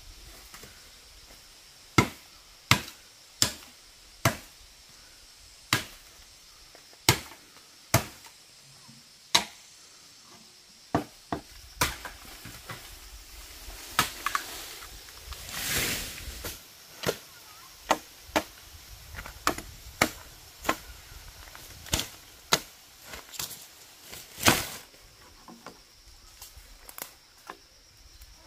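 Bamboo culm being chopped with a blade: about two dozen sharp, separate strikes at an uneven pace of one or two a second, with a longer rush of noise about halfway through.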